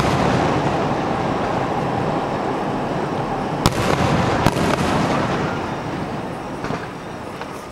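Aerial firework shells bursting, with two sharp bangs about a second apart midway through over a continuous dense rumble that fades over the last couple of seconds.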